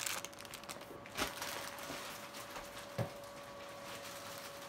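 Plastic mailer bag rustling briefly as it is handled, then two soft knocks about a second and three seconds in, over a faint steady hum.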